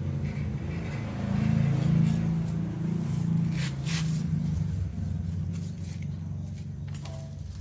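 A low, steady mechanical drone, like an engine running, swells about a second in and eases off toward the end. Over it come a few light rustles and taps of paper templates and cut plates being handled.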